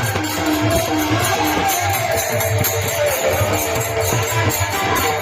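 Warkari bhajan music: a gliding melody line over a steady rhythm of jingling hand cymbals and low drum beats.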